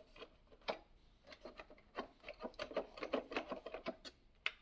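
Light clicks and rubbing as the Xiaomi X10+ robot vacuum's stuck bumper is tapped and the robot handled, a quick irregular clatter densest in the middle with a sharper click near the start and another near the end.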